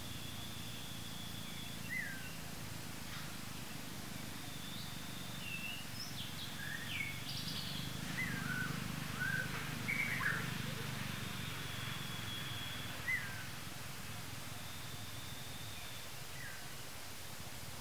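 Forest ambience with birds calling: short falling chirps, busiest about halfway through, and a few longer held high whistles, over a steady low rumble.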